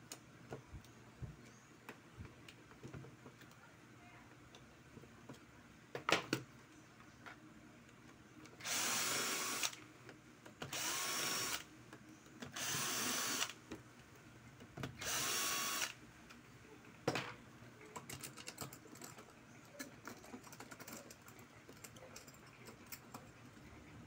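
Cordless drill-driver running in four short runs of about a second each, each spinning up quickly and then holding steady, while screws are backed out to take a fan apart. A couple of sharp knocks and small handling clicks come between the runs.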